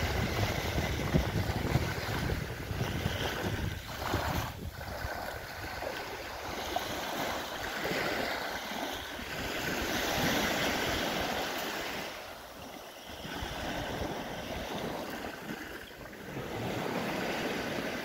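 Small waves of a calm sea breaking and washing up a fine-pebble shore, the surf swelling and fading every few seconds. A low rumble of wind on the microphone sits under it in the first few seconds.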